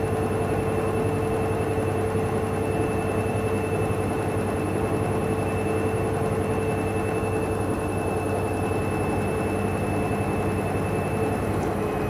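Hoover front-loading washing machine running with its drum full of suds, a steady motor whine over drum rumble: a suds lock, where too much foam holds back the spin. The pitch dips slightly near the end.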